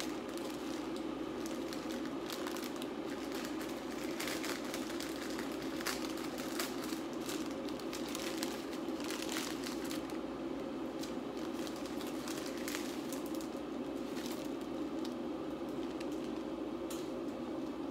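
Plastic instant-noodle packaging crinkling and crackling in the hands in irregular bursts, over a steady low rush from a pot of noodles boiling.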